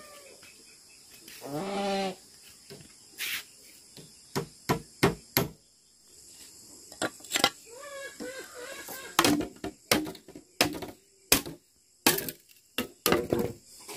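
About fifteen irregular sharp knocks, some single and some in quick pairs, with a short pitched animal cry just before them and a few wavering high cries about halfway through. A steady high insect drone goes on underneath.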